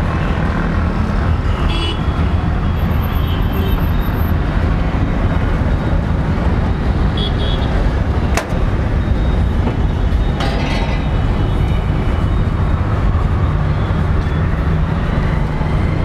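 Steady street traffic rumble with occasional horn toots and background voices. There is one sharp click about eight seconds in.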